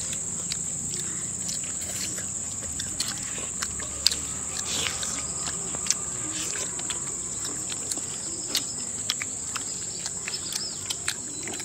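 Insects in the background keep up a steady high-pitched drone, with scattered short clicks and smacks from chewing and tearing grilled chicken by hand. The sharpest click comes about four seconds in.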